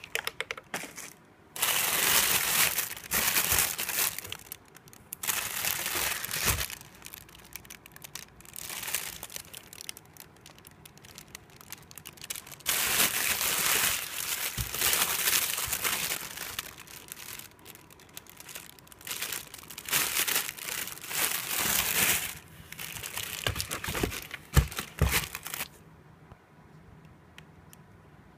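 Plastic packaging film and bubble wrap crinkling in repeated bursts as plastic-wrapped vegetables such as a napa cabbage are handled and moved around in a cardboard box. The crinkling stops a couple of seconds before the end.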